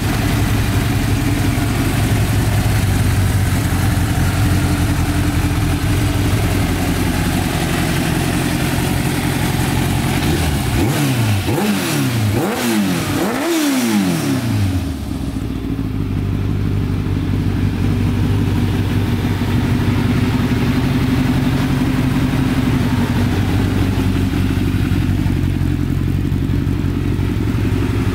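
Yamaha YZF1000R Thunderace inline-four motorcycle engine idling steadily through an Akrapovic carbon slip-on exhaust. It is revved three times in quick succession about halfway through, then settles back to idle.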